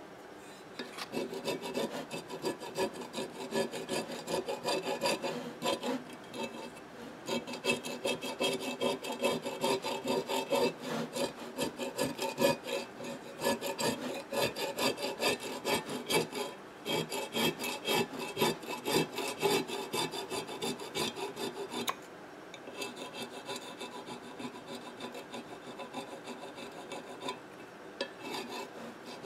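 Quick, repeated scraping and rubbing strokes on a loudspeaker basket, cleaning off the residue of the old foam surround and its glue. The strokes start about a second in and become lighter after about 22 seconds.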